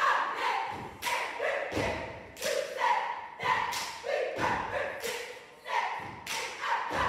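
A line of performers stomping in unison on a wooden stage, a sharp stomp about every half second to second, with the group shouting a chant together between the stomps.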